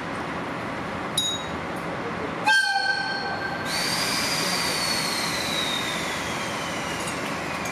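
Standing DD51 diesel and C58 steam locomotive pair: a click about a second in, then a short locomotive horn blast of about a second a little later. It is followed by a long hiss whose whistling tone slowly falls in pitch.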